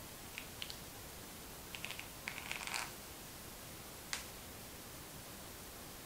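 Faint scattered light clicks and a brief rustle of handling over a steady background hiss: a couple of clicks early, a short clustered run of clicks about two to three seconds in, and a single click a little past four seconds.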